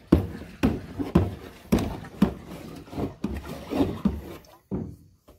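A long pipe stirring pesticide solution in a drum of water, sloshing in regular strokes about twice a second that die away near the end.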